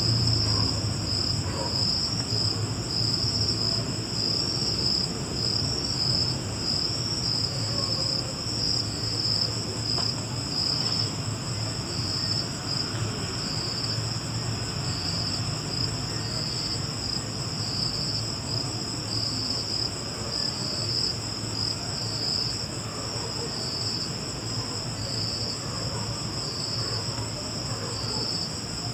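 Crickets chirping: a loud, pulsing high-pitched song that goes on without a break, over a steadier, higher insect hum.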